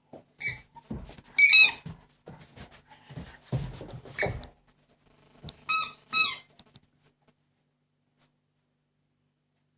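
Squeaker in a plush dog toy squeaking as a young Doberman chews and mouths it: about five short, high squeaks over the first seven seconds. Low bumps and rustling come from the dog handling the toy.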